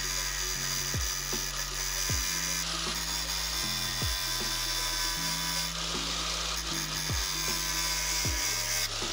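Angle grinder grinding the steel edge of a small axe, a steady high grinding hiss as the disc takes off stock to remove pitting; it stops near the end. Background music with a deep bass and kick-drum thumps plays underneath.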